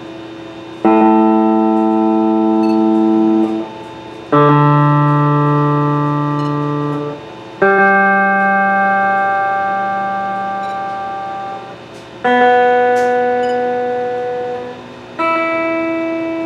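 Electric guitar strings plucked one at a time and left to ring while being tuned: five notes, each struck once and fading over about three seconds.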